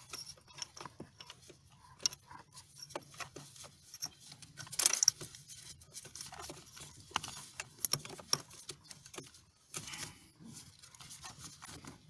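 Scattered small clicks and rustles of a gloved hand turning a plastic brake light switch to unscrew it from the brake pedal bracket, at irregular times with the strongest clicks about five seconds in and around seven to eight seconds.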